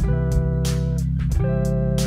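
Background music: a guitar-led instrumental over bass with a steady beat, the chord changing about every second and a half.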